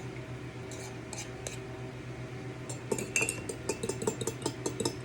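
A utensil beating eggs in a bowl: a few scattered clinks, then, about three seconds in, a quick regular clinking of about five strokes a second against the bowl.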